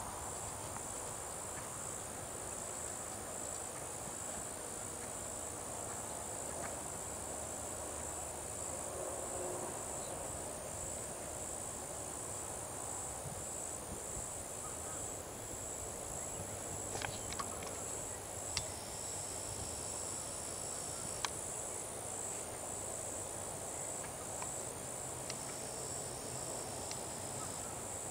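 Insects trilling steadily in a high-pitched, evenly pulsing chorus, with a few faint sharp clicks in the middle.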